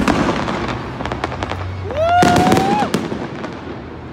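Fireworks going off in quick succession: a run of sharp bangs and crackles, loudest about two seconds in. Over that loudest stretch a person lets out a whoop that rises and then holds its pitch.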